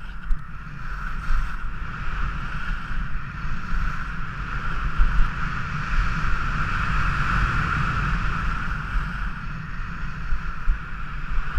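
Skis sliding and scraping over groomed piste snow during a downhill run, with wind rushing over the action camera's microphone: a steady hiss over a low rumble.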